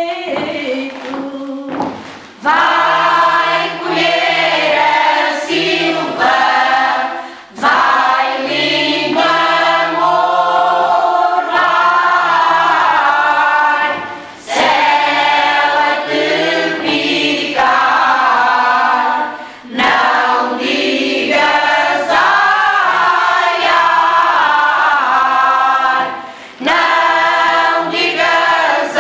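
Unaccompanied women's choir singing cante alentejano, many voices together in long, slow phrases that break briefly for breath every five or six seconds. The first two seconds are quieter before the full choir comes in.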